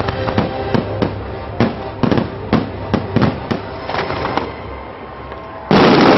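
Fireworks display: a rapid run of bangs and pops from bursting shells, with a louder rush of noise lasting about half a second near the end.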